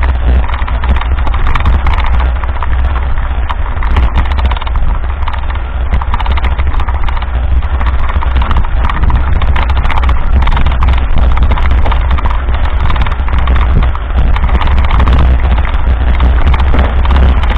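Mountain bike rolling over a rough, sandy dirt road, heard through an action camera moving with the rider: a constant dense clatter of rattles and small knocks over a steady low rumble.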